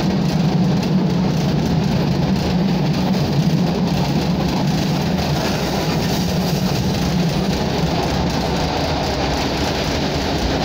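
Steady running noise inside a ČSD class M262.1 diesel railcar under way, an engine drone mixed with wheels rolling on the rails. The low drone weakens in the second half.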